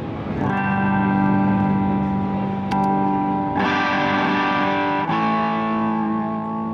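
Electric guitar played through an Animals Pedal Vintage Van Driving Is Very Fun overdrive pedal, with light overdriven breakup. Four chords are struck and left to ring, one after another, with a brighter strum a little past the halfway point.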